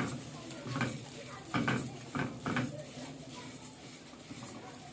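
A spoon stirring and scraping flattened rice (aval) as it is lightly roasted in ghee in a pan: a handful of short scrapes in the first three seconds, then quieter.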